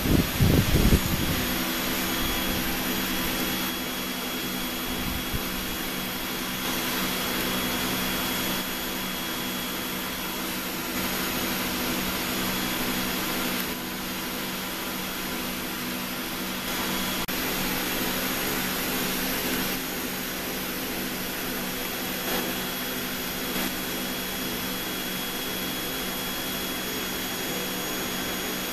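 Steady whir of a running exhaust blower, with a low hum and a faint high whine. A brief rustle in the first second.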